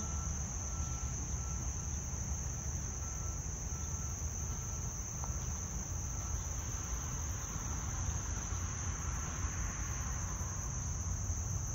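Steady high-pitched drone of insects over a low rumble of passing trucks and nearby construction, with a faint, evenly repeated beep that stops about nine seconds in.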